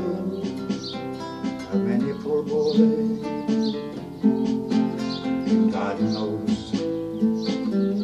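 Acoustic guitar playing an instrumental passage, accompanied by hand-played beats on a Roland electronic percussion pad.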